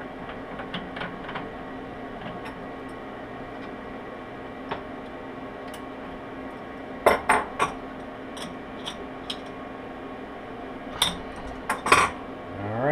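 Metal clinks and taps from end mills and the end mill holder being handled while a 1/8 ball end mill is fitted to a Taig CNC mill: scattered light ticks, then loud clusters of clinks about seven seconds in and again near the end, over a steady low hum.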